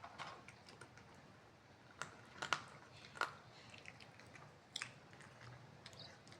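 A cat chewing and eating close up, with a few sharp clicks of its bites, grouped about two to three seconds in and again near the end.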